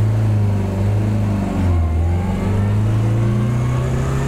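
Turbocharged 850 cc four-cylinder A-series engine of a classic Mini Moke accelerating under load. Its pitch climbs, drops for about a second (as at a gear change) about a second and a half in, then climbs again.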